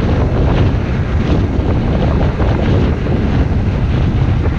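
Steady wind buffeting an action camera's microphone on a road bike moving at speed.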